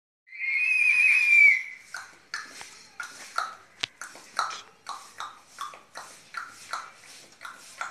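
A boy imitating a horse with his voice: a wavering, high-pitched whinny lasting about a second and a half, then a steady run of short clopping sounds, about three a second, like trotting hoofbeats.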